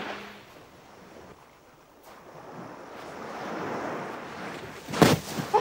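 Sea waves washing on a rocky shore, the wash swelling and then falling away. Near the end comes a sudden loud burst, followed by a brief shorter sound.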